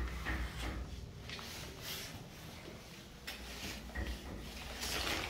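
Rustling, soft knocks and low rumble from a handheld camera being moved around, with a small tiled bathroom's echo.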